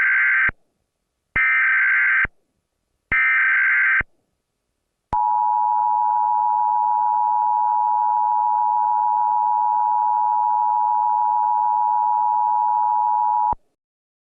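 Emergency Alert System SAME header for a Child Abduction Emergency: the end of one digital data burst and two more, each about a second long with short gaps, then about a second later the EAS two-tone attention signal, held steady for about eight seconds and cutting off sharply.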